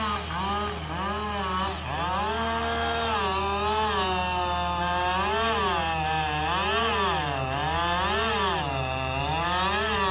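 Husqvarna 562XP two-stroke chainsaw running at full throttle, its pitch repeatedly sagging and recovering as it is loaded in a cut. The saw now runs and pulls cleanly, its earlier running trouble traced to a loose fuel hose that let in air.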